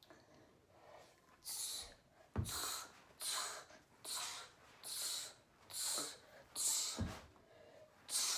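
A child's sharp exhales through a karate form, about eight short breaths a little under a second apart, each timed to a strike or block. Two of them land with a low thump.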